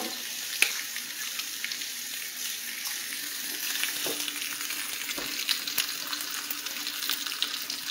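Strips of bacon frying in a nonstick skillet: a steady sizzle with scattered crackles and pops of fat, over a faint steady hum.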